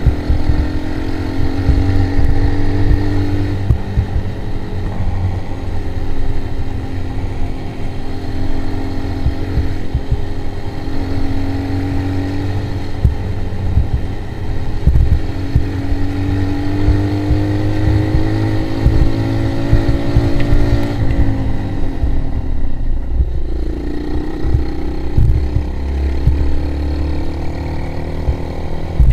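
ATV quad engine running under way. Its pitch climbs slowly as it pulls and drops back several times, over a heavy low rumble. About three-quarters of the way through, the engine note falls away as it eases off, then picks up again.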